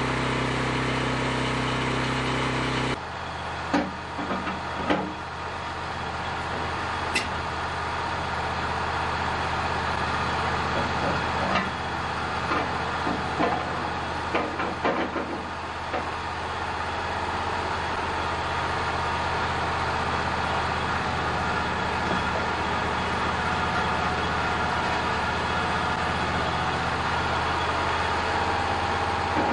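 Sawmill engines running steadily. One hum cuts off abruptly about three seconds in and is followed by the Wood-Mizer bandmill's engine idling, with scattered wooden knocks and thumps as a long flitch is turned over on the mill bed.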